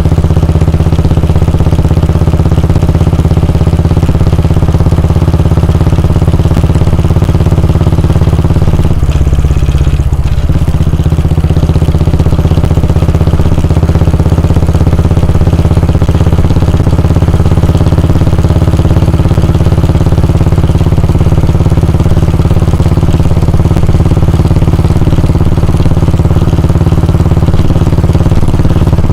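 Royal Enfield Bullet 350's 349 cc air-cooled single-cylinder engine running steadily, with a brief change in its note about nine seconds in that lasts about a second and a half.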